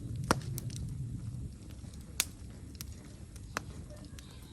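Wood fire crackling in a fire pit: a few sharp, separate pops, the loudest near the start, over a low rumble that fades after about a second and a half.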